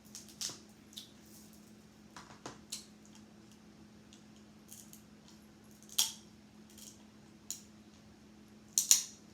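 Crab leg shells cracking and snapping as they are bitten open, with chewing in between: a string of sharp, irregular cracks, the loudest about six seconds in and a double crack near the end. A faint steady hum runs underneath.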